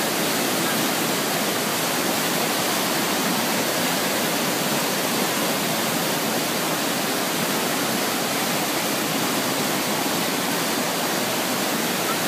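Fast mountain river rushing noisily over rocks and fallen logs in whitewater rapids, a steady, unbroken sound.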